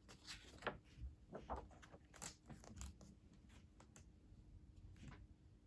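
Faint rustling and a few light clicks of a picture book's paper pages being handled and turned, most of it in the first three seconds and once more about five seconds in.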